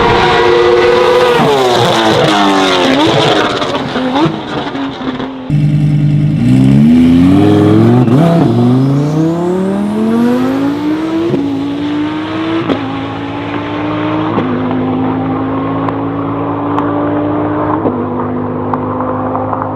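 Supercar engines revving hard. At first one climbs in pitch and then winds down through the gears. After a cut about five seconds in, an engine revs up and down, then accelerates through the gears, with four sudden drops in pitch at the upshifts.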